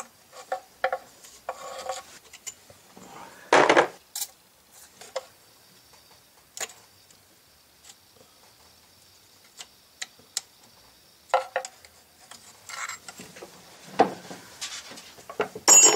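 Hands working at the fuel and injector lines of a Chevy 6.2 diesel engine: scattered metal clicks, scrapes and rattles of lines, clips and fittings being handled. There are a few louder clatters, one about four seconds in and others near the end.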